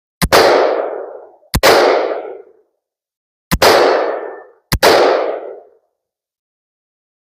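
Four single shots from a short-barreled AR-15 rifle firing Winchester green-tip 5.56 mm rounds, spaced unevenly a second or two apart, each trailing off over about a second.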